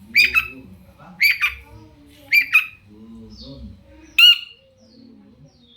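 Long-tailed shrike (cendet) calling: four short loud squawks about a second apart, each a quick pair of notes.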